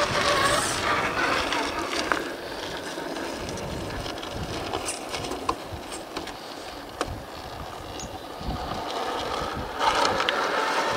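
1/10-scale Traxxas TRX-4 RC crawler's electric motor and drivetrain whirring as it crawls up a rock slope, with sharp clicks of the tyres and chassis on the rock. It is louder in the first second and again near the end, quieter in between.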